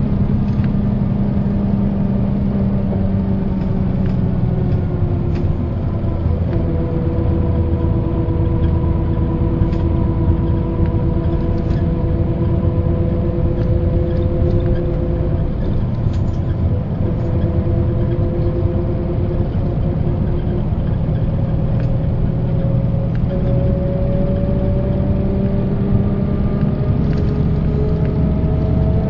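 Mercedes-Benz O408 bus heard from inside while driving: the OM447hLA turbo diesel engine running under a steady drivetrain whine. The whine slowly falls in pitch through the middle and rises again near the end as road speed changes.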